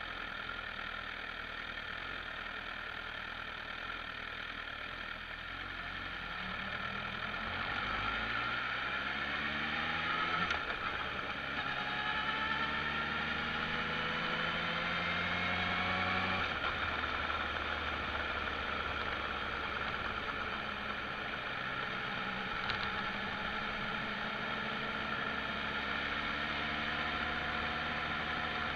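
Motorcycle engine under way, its pitch climbing in steps as it accelerates through the gears from about six seconds in, then dropping suddenly a little past halfway as the throttle is closed. It then runs on at a steady pitch, rising slightly near the end.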